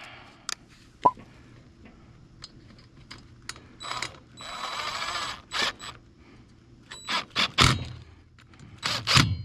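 Ignition coil mounting bolts on a small Stihl trimmer engine being driven in and tightened with a hand tool: scattered metal clicks and scrapes, with a burst of ratcheting about halfway and a quick run of clicks near the end.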